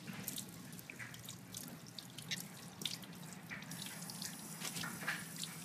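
Kitchen tap running into a stainless steel sink while a squid is rinsed by hand under the stream, with irregular splashes and drips.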